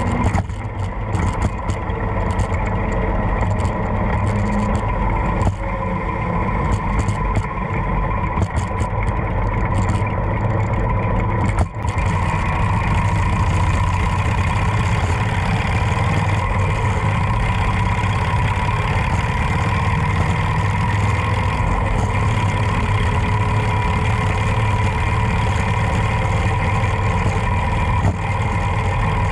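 Harley-Davidson Road Glide's V-twin engine running steadily on the ride, with wind noise on the microphone. About twelve seconds in there is a brief dip, then the wind hiss grows fuller.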